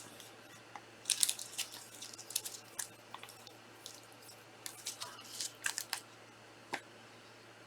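Trading cards being handled at a table: scattered soft rustles and clicks of card stock and plastic, in short clusters with a single sharper tick near the end, over a faint low hum.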